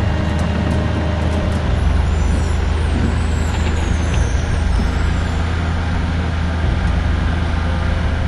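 A large engine running steadily, its low drone getting heavier about two seconds in, as if taking on load.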